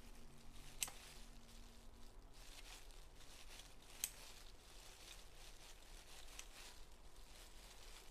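Quiet rustling of plastic food-prep gloves handling and tearing pieces of seaweed-wrapped grilled tofu skin, with two sharp clicks, about a second in and about four seconds in.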